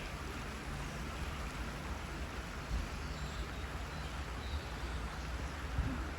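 Waterfall: a steady rush of falling water with a deep low rumble underneath.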